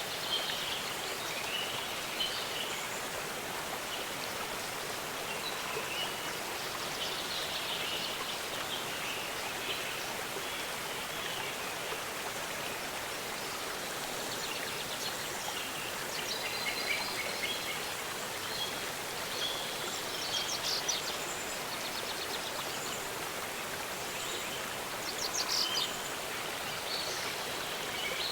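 Steady rushing of a waterfall, with birds chirping and singing over it and a couple of quick trills in the second half.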